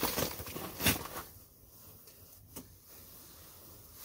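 Rustling and handling noises, with a sharp knock about a second in and another shorter one past the middle, then quieter.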